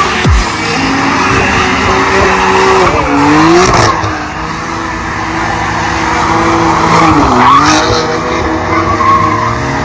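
A car doing donuts: its engine is held at high, steady revs while the rear tires spin and skid on asphalt. The revs dip and climb back twice, about a third of the way in and again near three-quarters of the way through.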